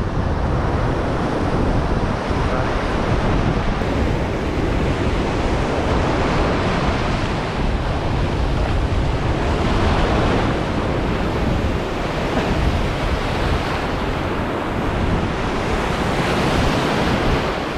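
Surf breaking and washing up the beach, rising and falling in surges a few seconds apart, with wind buffeting the microphone as a low rumble.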